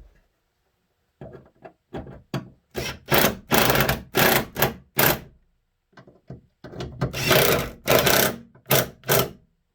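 Scraping and rubbing with knocks, in about a dozen uneven bursts, some short and some lasting nearly a second, as parts of a truck grille assembly are handled and worked into place.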